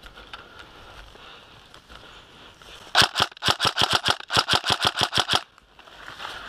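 Tokyo Marui HK416 DEVGRU electric airsoft rifle firing close up: two quick strings of sharp shots, about seven a second, with a brief break between them, starting about three seconds in.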